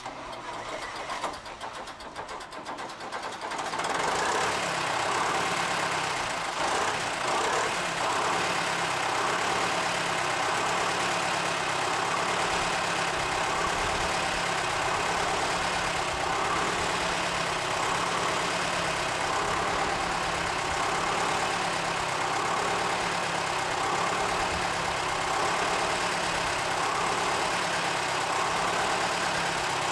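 The 1957 diesel locomotive V6's engine starting up, catching unevenly over the first few seconds, then idling steadily.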